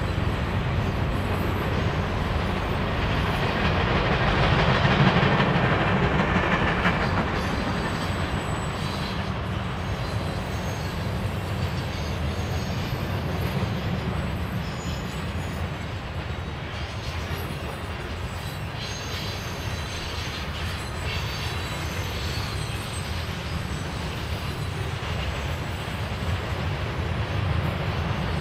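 Train passing, its railcars rolling steadily over the rails. The sound swells to its loudest about five seconds in, then settles to a steady rolling.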